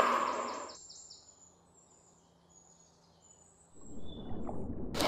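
Birds chirping in quick, repeated falling notes over an outdoor hiss that fades out about a second in. Then it goes nearly quiet with faint distant chirps, and a rushing noise swells up near the end.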